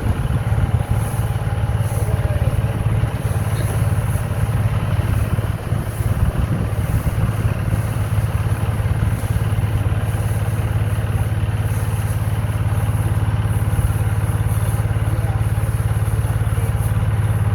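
Combine harvester's engine running with a constant low drone and mechanical noise; the sound is uneven for the first half and steadies after that.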